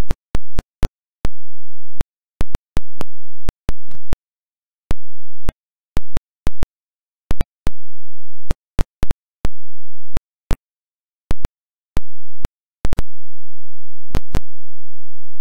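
A broken recording signal dropping in and out: stretches of dead silence alternate with stretches of faint electrical hum and low murmur, with a sharp click at each cut, roughly two dozen times and at an uneven pace.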